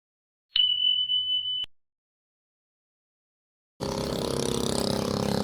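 A single steady high-pitched beep lasting about a second, then, after a pause, an engine starts to be heard running steadily, a low hum with a regular pulse, under open-air noise.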